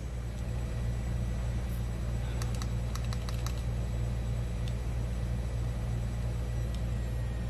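Small clicks of the SXK SupBox PRO's DNA60 box mod buttons being pressed to step the wattage: a quick run of about seven clicks two to three and a half seconds in, then two single clicks later. Under them runs a steady low hum.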